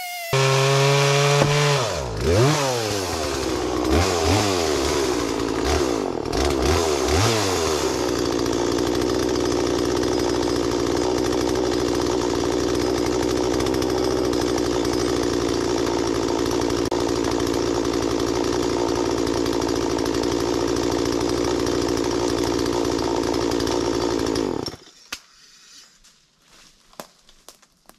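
Gasoline chainsaw revving up and down about four times, then running steadily at high speed, and cutting off suddenly near the end.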